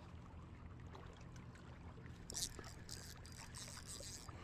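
Faint whirring of a spinning reel being cranked to retrieve line, in short repeated spells starting about halfway through, over a low steady rumble.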